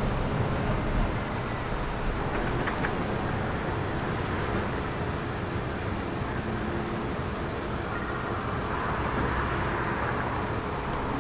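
Steady outdoor background rumble and hiss, with a faint, rapidly pulsing high tone.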